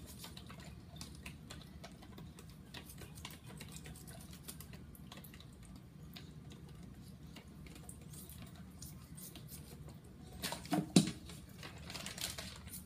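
Raw placenta being cut into small pieces by hand, heard as faint, irregular small clicks and wet snips, with a few louder ones about ten and a half seconds in.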